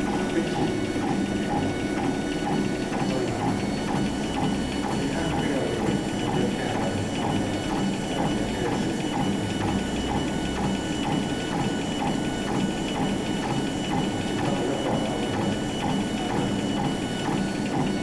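TZJD 1290S laser engraving machine running: its laser head driven back and forth along the gantry rail, motors whirring and reversing in a quick, even rhythm over a steady mechanical hum as it raster-engraves a stone tile.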